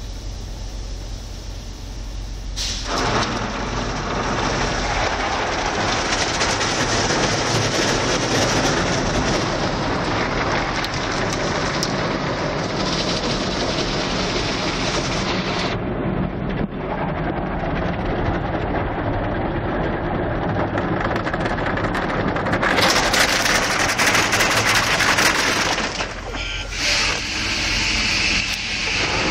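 Automatic car wash heard from inside the car: water spray and washing equipment beating on the body and windshield, a steady rush of noise that starts about three seconds in over a low machinery hum. It shifts in tone a few times and gets louder and hissier for a couple of seconds near the end.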